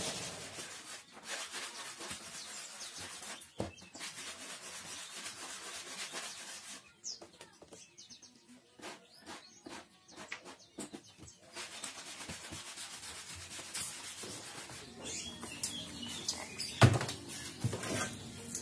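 Wooden bed drawers slid in and out along their metal drawer runners, a scratchy rubbing with small clicks and rattles, and a sharp knock near the end as a drawer or panel meets the frame.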